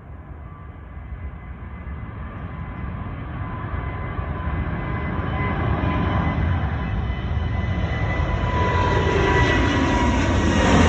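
Jet airliner taking off, its engine noise growing steadily louder and brighter as it approaches, with a thin steady whine from the engine fans.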